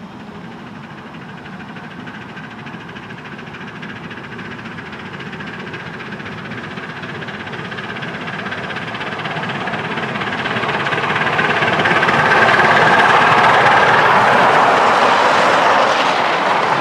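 Miniature steam train approaching and passing close by, its wheels running on the rails. It grows steadily louder over the first twelve seconds or so and stays loud as the locomotive's tender and the passenger cars go past.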